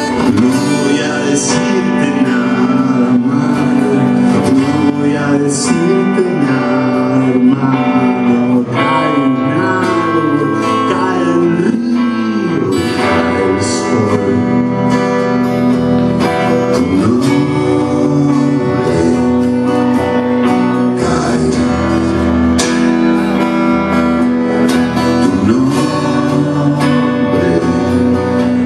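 A live acoustic-and-electric guitar duo playing a song, the guitars strummed, with a man singing over them.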